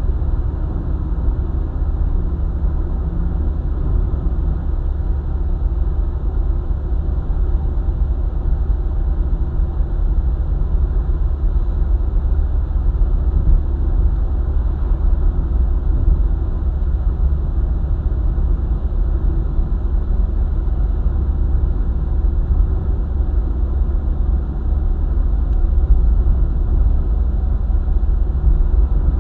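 Car travelling at speed on a highway: a steady low rumble of engine and tyres on the road surface.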